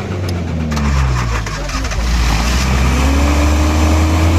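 Suzuki Potohar's 1000cc petrol engine running just after starting, its revs sagging in the first second and then rising again from about two seconds in. It now runs after a worn-out breaker point was replaced and an air leak on the fuel pump's pipe was fixed.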